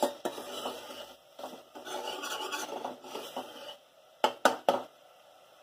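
Metal spoon stirring and scraping wet onion masala in a stainless steel pressure cooker, then about four quick, sharp knocks near the end.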